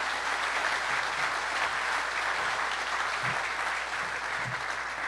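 An audience applauding steadily.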